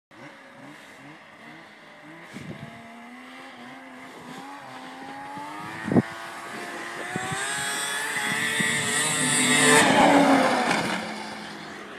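Two-stroke snowmobile engine revving under throttle. It grows louder and climbs in pitch as the sled comes closer and speeds up, peaks as it flies past during a jump, then drops away. A single sharp knock about halfway through.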